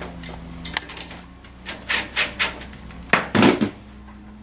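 Bolt being started by hand into the steel front rack's mounting bracket on a small ATV: a series of light metal clicks and taps, then a louder scraping clunk a little after three seconds in.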